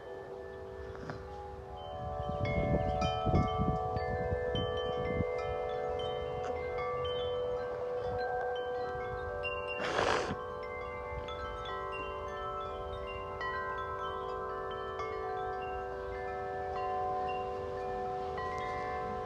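Several sets of large tuned metal wind chimes, Corinthian Bells among them, ringing in gusty wind, their long tones overlapping as new strikes come in. Wind rumbles on the microphone about two to five seconds in, and a short rush of noise comes about halfway through.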